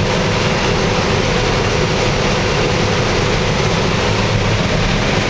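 Combine harvesting corn: its engine and threshing machinery running steadily with a constant hum, heard from inside the machine.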